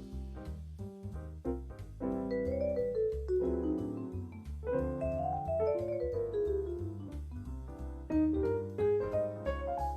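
Jazz instrumental played over a backing track: quick runs of notes climbing and falling over a steady bass line.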